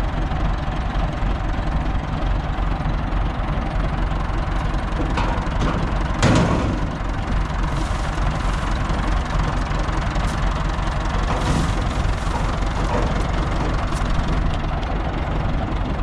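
Combine harvester running steadily, its engine and machinery making a continuous heavy mechanical rumble. There is a brief louder surge about six seconds in.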